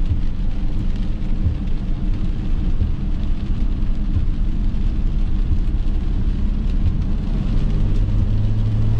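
Steady low rumble of a vehicle driving on rain-soaked pavement, heard from inside the cabin, with faint regular knocks about every one and a half seconds from the windshield wipers. A steady low hum joins near the end.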